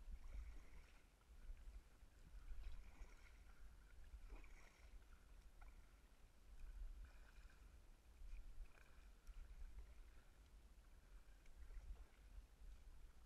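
Kayak paddle strokes swishing and dripping in the water, faint and muffled by a GoPro's waterproof housing, about one every couple of seconds over a low dull rumble.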